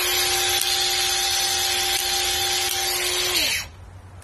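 Bosch cordless X-LOCK angle grinder running with no load, giving a steady whine. About three and a half seconds in it is switched off, and its pitch falls as it winds down and stops quickly.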